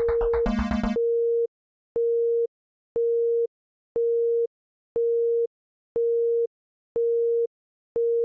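Music cuts out about a second in, followed by a single-pitched electronic beep repeating once a second. Each beep lasts half a second and is separated by half a second of silence, like a telephone busy signal.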